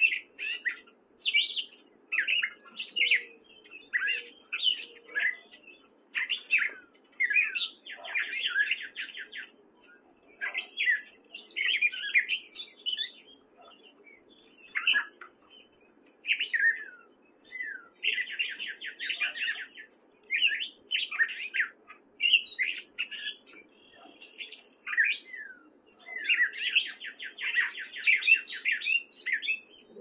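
Gray catbird singing: a long, rambling string of short, varied squeaky and whistled phrases with brief gaps, broken up by several fast, stuttering runs of repeated notes.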